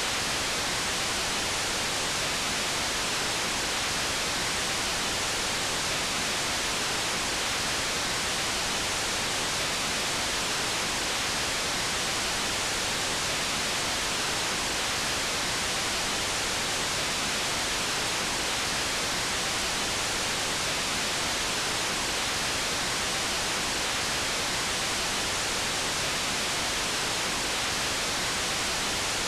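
Steady hiss of static, like a TV or radio channel with no signal: an even, unbroken noise, brightest in the treble.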